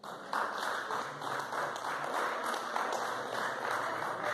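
A small group applauding, dense clapping that starts abruptly and keeps going.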